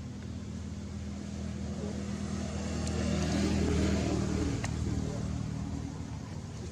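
A motor vehicle's engine running steadily as it passes, growing louder toward the middle and then fading.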